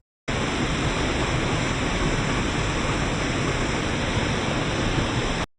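Steady rush of a waterfall, an even noise with no rhythm or pitch, starting and stopping abruptly a few tenths of a second in and near the end.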